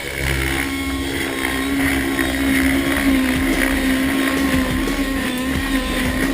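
Model helicopter's glow-fuel nitro engine (a YS 120 in an Align T-Rex 700) running steadily at flying speed, its pitch wavering slightly.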